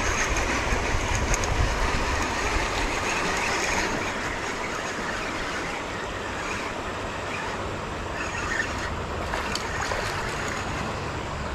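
Steady rushing of creek water flowing through a riffle, louder for the first few seconds and then even.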